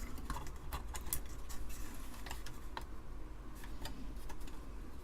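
Light, irregular clicks and taps of a metal RF shield being worked down into place over an Amiga 1200 motherboard.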